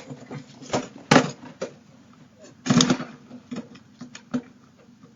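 Scattered irregular knocks, scuffs and rustles, the loudest about a second in and again near three seconds, over a faint low hum, picked up through a doorbell camera's microphone.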